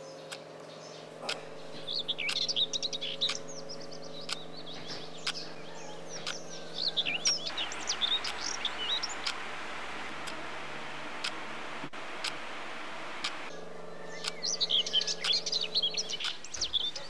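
Small songbirds chirping in quick, high flurries that come in three bursts, over a steady low hum with sharp clicks now and then.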